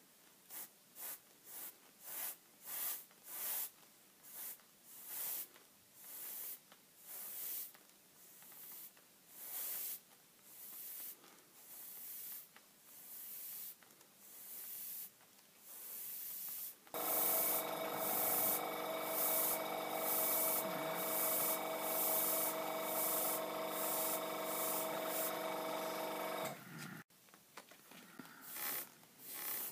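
Iwata Eclipse airbrush spraying paint in short bursts, roughly one a second, as the trigger is worked. About halfway through, an air compressor starts and runs with a steady hum for about ten seconds, then cuts off suddenly.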